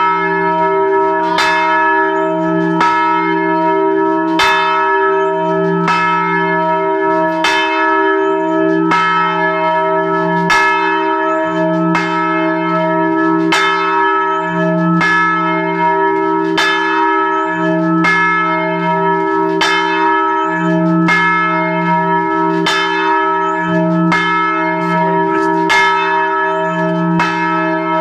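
Large church bell swinging and ringing, heard up close beneath it in the belfry. Its clapper strikes about every second and a half, each stroke over a steady hum of the bell's deep ringing tones.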